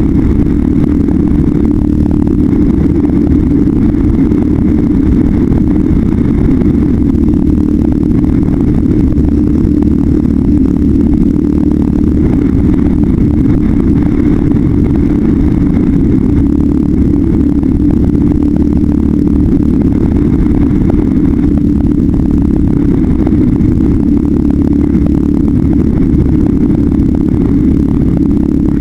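Polaris Predator 500 ATV's single-cylinder four-stroke engine running steadily at riding speed, heard from a helmet-mounted camera.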